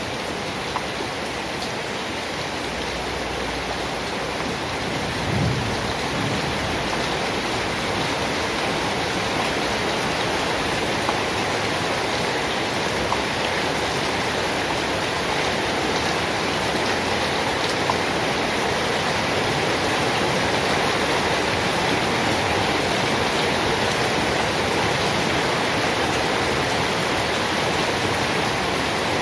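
Steady heavy rain with scattered sharper drop ticks, and a brief low rumble of distant thunder about five seconds in.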